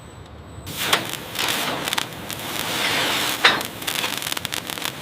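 Dense crackling and scraping noise with many sharp clicks, starting under a second in after a quieter stretch.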